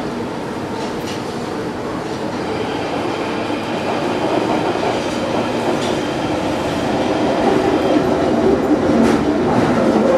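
London Underground Northern Line 1995 Tube Stock train running through a deep-level tunnel, heard from inside the carriage: a steady rumble of wheels on rail with a few sharp clicks, getting gradually louder.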